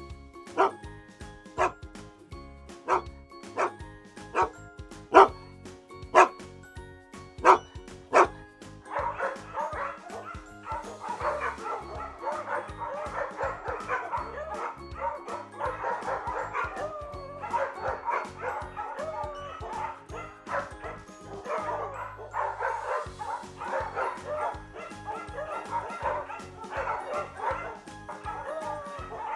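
Music with dog barks: sharp, loud barks about once a second over the first eight seconds, then a dense, continuous layer of barking and yipping over the music.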